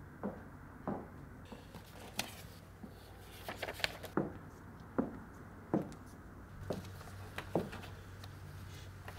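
A woman's footsteps striking a hard floor at a walking pace. They pause for a couple of seconds while sheets of paper are handled and rustled, then resume with about five more steps approaching. A low steady hum runs underneath.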